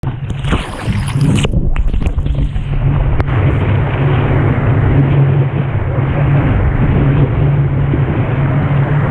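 Wind buffeting the microphone of a camera on a surfboard's nose as the board rides a wave, over the rush and splash of whitewater against the board. A burst of splashing spray and a few sharp knocks come in the first two seconds, then a steady loud rumble.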